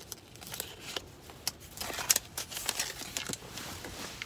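Paper dollar bills and a wallet being handled, giving an irregular crinkling and rustling with small clicks, busiest around the middle.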